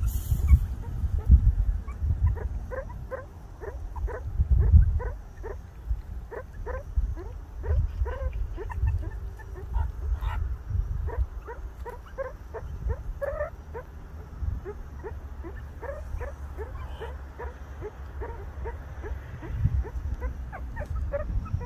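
Meerkats giving rapid, repeated short alarm barks, several calls a second, each dropping in pitch: the group's alarm at a leopard cat in view.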